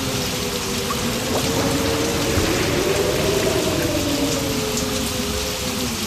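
Steady heavy rain, an even hiss with no breaks, under a low drone of several slowly wavering tones.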